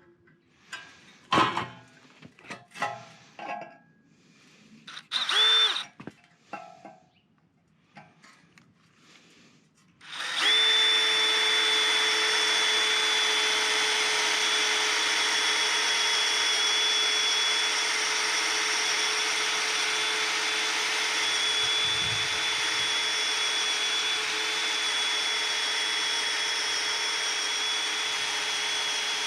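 Small electric motor, as in a power tool, giving a short burst about five seconds in, then running steadily with a constant whine from about ten seconds in. Scattered knocks and clicks of parts being handled come before it.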